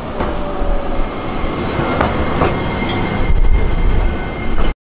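Streetcar running on its rails: a steady rumble with clicks of the wheels over rail joints and a faint wheel squeal in the first second. The rumble grows heavier near the end, then the sound cuts off suddenly.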